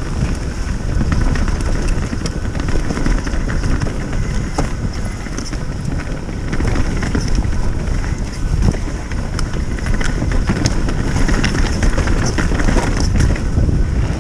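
Wind buffeting the microphone over the sound of a mountain bike riding a rough dirt trail, with frequent clicks and rattles.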